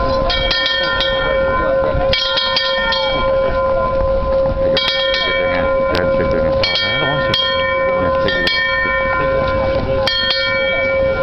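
A graduation bell rung repeatedly: about five strikes at uneven intervals, each bringing a bright clang, while the bell's deep hum keeps sounding between strikes.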